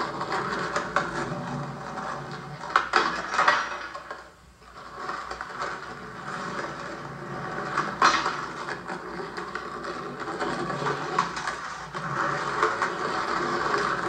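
Skateboard wheels rolling over pavement, with a few sharp board clacks; the loudest clack is about eight seconds in, as a rider passes the rail.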